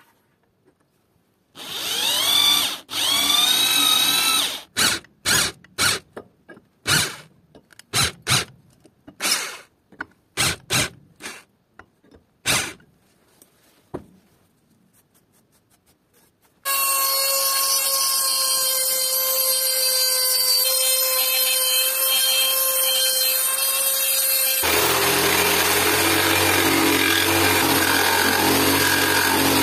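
An electric drill bores holes in the steel head of a kitchen axe. It spins up once with rising pitch, then runs in a series of short bursts, each a second or less. After a few quiet seconds a steady motor sound starts, and from about 25 seconds in a Bosch jigsaw runs steadily, cutting an oak handle blank.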